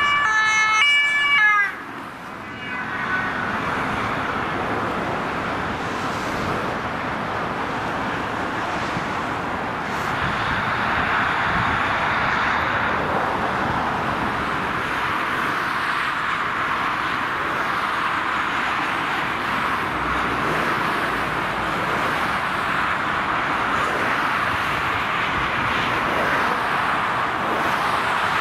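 Emergency vehicle two-tone siren alternating between its pitches for about two seconds, then cutting off abruptly. After that, steady motorway traffic noise of passing cars and lorries.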